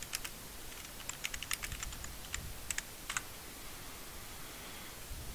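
Typing on a computer keyboard: a quick, uneven run of key clicks over the first three seconds or so, then it stops.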